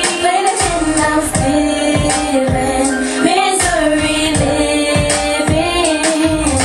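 Hip-hop song: a drawn-out sung vocal line gliding between held notes over a beat with regular bass kicks.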